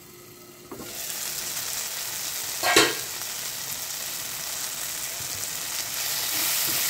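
Onions, tomato and green chillies sizzling steadily in mustard oil in a frying pan, with one sharp clank about three seconds in. The sizzling grows a little louder near the end as the pan is stirred with a spatula.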